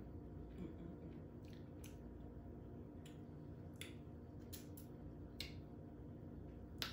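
A person eating seafood with their fingers close to the microphone: soft chewing with scattered short clicks and smacks, about eight in all, over a steady low hum.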